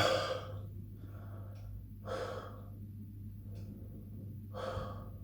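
A man's sharp, sudden gasp at the start, then heavy breathing with three audible breaths spread over the next few seconds: pained breathing from the burn of an extremely hot chili.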